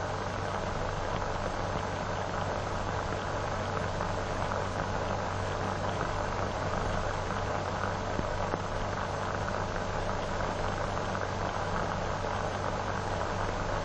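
Steady hiss and low hum of an old optical film soundtrack, with no speech or music.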